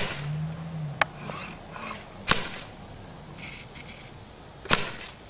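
Gunshots: four sharp reports at uneven intervals, the second one fainter, with a brief low hum just after the first.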